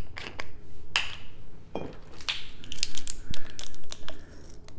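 Small handling clicks, clinks and rustles from a ring of measuring spoons and a small spice jar being picked up and sorted, bunched most densely between about two and three and a half seconds in.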